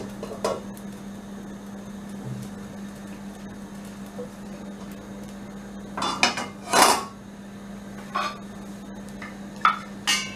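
Metal clattering of an appam pan and its lid being handled on the stove: a few scattered knocks, with the loudest cluster about six to seven seconds in, over a steady low hum.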